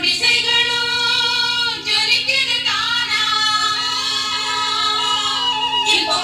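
Song with a female voice singing a sustained melody, played back from a cassette tape on a Technics M215 stereo cassette deck.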